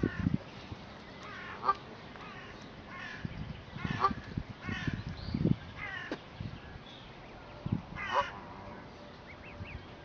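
Canada geese calling: about six short calls spaced roughly a second apart, with a few low thumps among them.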